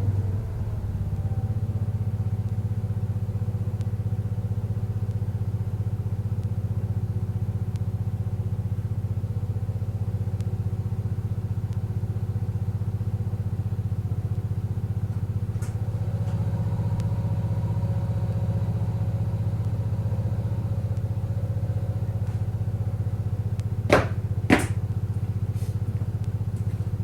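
1975 Case 224 garden tractor engine running steadily with its snow thrower. Two sharp knocks, about half a second apart, come near the end.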